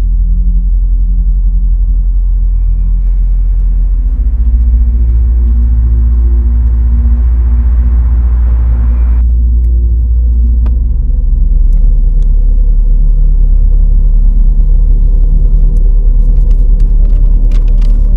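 Loud, steady low rumbling drone with a few held tones above it. A hiss swells over it and cuts off suddenly about nine seconds in, and crisp paper rustling and crinkling comes in near the end.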